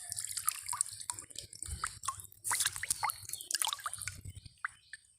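Water dripping and splashing in quick, irregular drops that thin out near the end.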